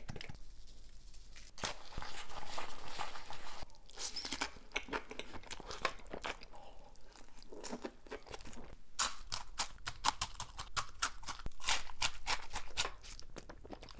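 A person eating spicy instant noodles mixed with crushed Blue Takis rolled tortilla chips: close chewing and wet mouth sounds, with a quick run of crisp crunches in the second half.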